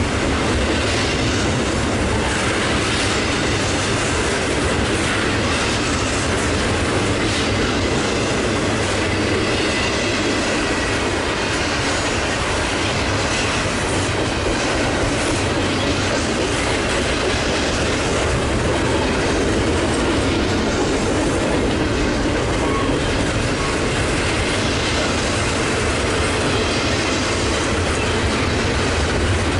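Double-stack intermodal freight train's container cars rolling past: a steady rumble and clatter of steel wheels on the rails that does not let up.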